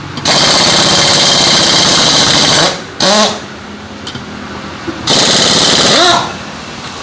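Pneumatic impact wrench hammering in bursts: a long burst of about two and a half seconds, a short one about three seconds in, and another of about a second near five seconds in.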